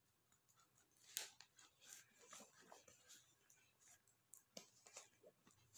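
Near silence, with faint scattered rustles and soft taps from a paper textbook being handled.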